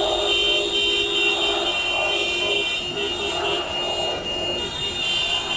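Car horns sounding in long, overlapping blasts, over the noise of a large crowd in the street.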